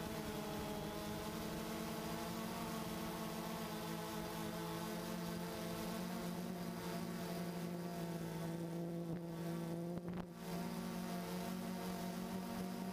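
DJI Phantom 2 quadcopter's motors and propellers buzzing at a steady pitch, heard from the camera mounted on the drone itself. The sound dips briefly about ten seconds in.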